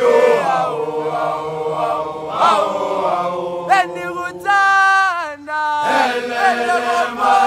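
A large group of schoolboys chanting a song together, loud, in long held notes that slide up and down in pitch, phrase after phrase with short breaks between.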